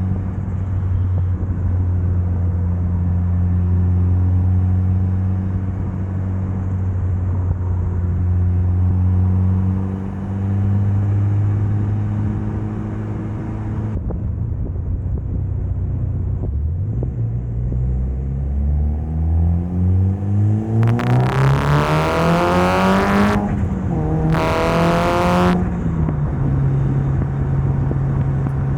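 Mitsubishi Lancer Evolution's turbocharged 2.0-litre 4G63 four-cylinder holding a steady note, then revving up hard under acceleration from about halfway. The revs dip briefly at an upshift and climb again, with a loud rushing noise over the hardest pulls, before settling to a steady, higher cruise note near the end.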